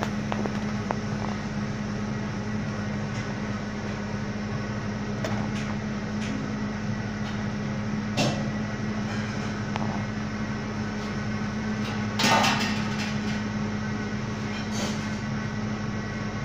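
Steady mechanical hum of a kitchen machine, with a few brief knocks and clatters, the loudest about twelve seconds in.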